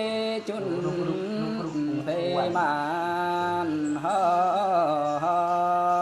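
A man singing a Dao folk song (hát Dao) in long held notes, with the pitch wavering and bending between them.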